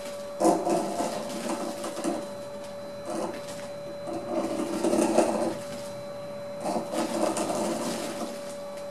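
Threading die in a hand-turned die stock cutting a thread onto a brass rod: scraping and creaking of the die biting the brass in several separate strokes, with cloth rustling from the gloves and sleeve. A faint steady hum runs underneath.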